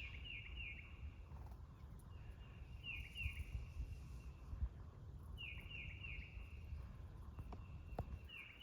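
A bird calling: groups of three or four short, falling whistled notes, repeated every two to three seconds, over a faint low rumble.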